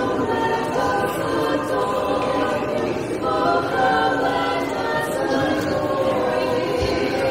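An a cappella vocal group singing in harmony, several voices holding and changing chords together.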